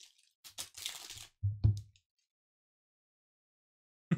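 Cellophane wrapper on a pack of trading cards crinkling and crackling as it is torn open, followed by two low thumps about one and a half seconds in as the pack is handled.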